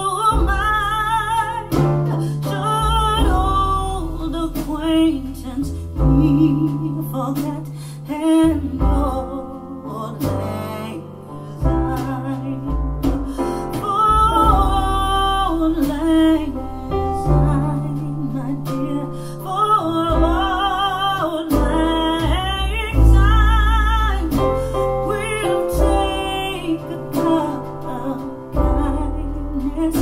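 A song with a singer over instruments and a steady bass line, played through a pair of PMC Prodigy 1 bookshelf speakers and picked up by microphones in the room.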